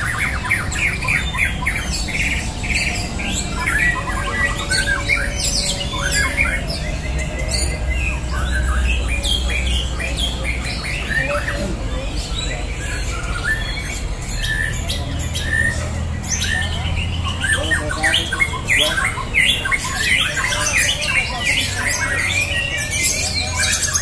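Many caged white-rumped shamas (murai batu) singing at once: a dense, overlapping tangle of whistles, chattering and rapid trills, with no pause, over a steady low rumble.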